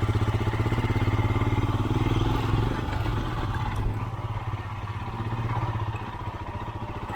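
Single-cylinder adventure motorcycle engine running steadily at low revs, with a fast, even beat and no revving.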